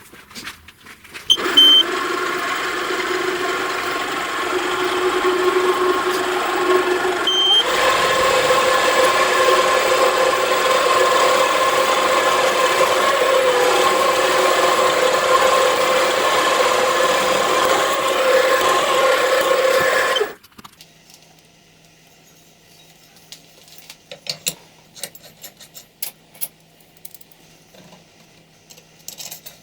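An electric power tool starts about a second in and runs steadily. Its pitch steps up about seven seconds in, and it stops abruptly about twenty seconds in. Light scattered clicks and taps follow.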